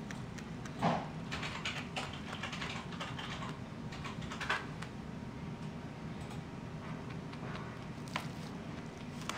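Rabbit chewing hay: quick runs of crisp crunching clicks, with a louder knock about a second in.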